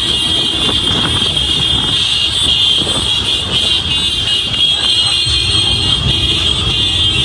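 Road vehicle engine running with continuous road rumble, under a steady high-pitched whine.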